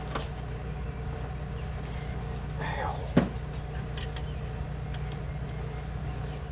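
Hand tools clicking against metal under the hood, with one sharp click about three seconds in and a few faint ticks after, over a steady low hum; a man says "ow" just before the sharp click.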